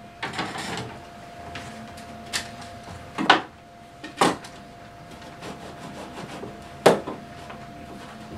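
Sections of Lionel FasTrack track, plastic roadbed with metal rails, being handled on a table and pressed together: some rubbing, then three sharp clicks about three, four and seven seconds in.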